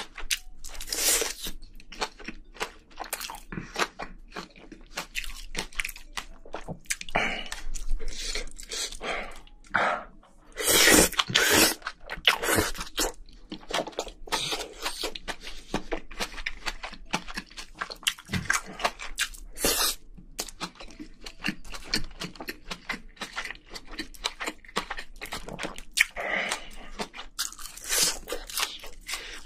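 Close-miked mouth sounds of a person eating Korean spicy braised seafood (haemul-jjim) with bean sprouts and rice: wet chewing with many short crunches and clicks. A louder, longer stretch of eating noise comes about ten to thirteen seconds in.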